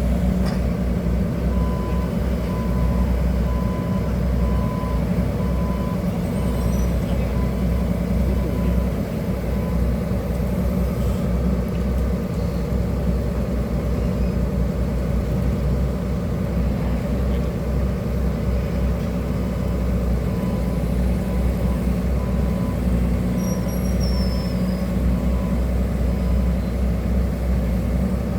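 Diesel engine of a hydraulic excavator running steadily under work, a continuous low drone. A faint repeated beep pulses on and off during the first several seconds and again later.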